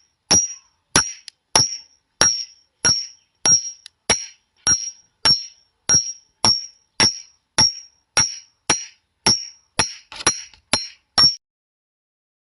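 A glass sound effect: a run of short, sharp glass impacts, about one every 0.6 seconds, each with a brief high ring and a little scatter after it. It stops about a second before the end.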